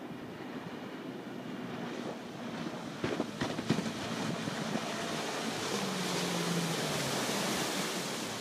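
Sea Ray 225 Weekender's 5.0 L MerCruiser V8 with Bravo III sterndrive running at speed as the boat approaches and passes close by: a steady engine drone under the hiss of hull spray and wake, both growing louder. A few sharp gusts of wind hit the microphone about three seconds in.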